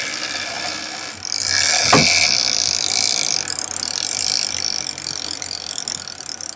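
Shimano Tiagra trolling reel's clicker buzzing as line pays out, starting about a second in and trailing off toward the end. Outboard motors run low underneath.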